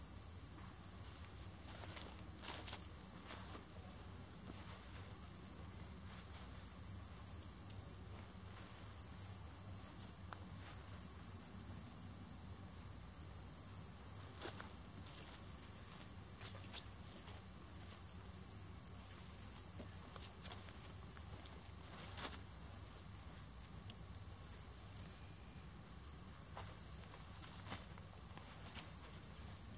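Steady high-pitched insect chorus, with a few scattered short clicks and knocks.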